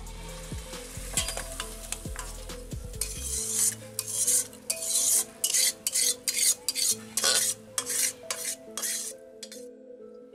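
A metal spoon scraping chicken curry out of a metal wok into a steel bowl. Rough scrapes come about twice a second from a few seconds in until near the end.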